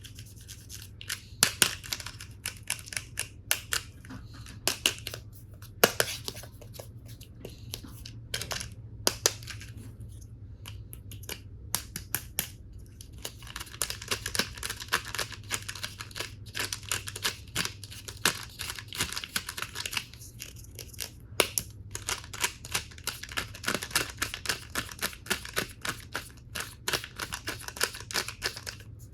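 Plastic toy tool pieces and their packaging being handled close up: frequent sharp clicks and taps of hard plastic, with stretches of crinkling in between.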